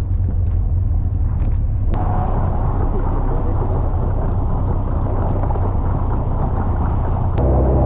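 Super Seven open roadster driving: a steady low engine rumble with road and wind noise, changing abruptly twice, about two seconds in and near the end.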